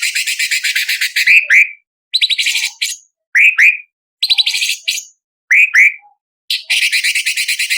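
Orange-bellied leafbird singing: a fast, harsh rattle of rapid notes, then a run of short bursts, each ending in a pair of quick rising notes, with brief pauses between them.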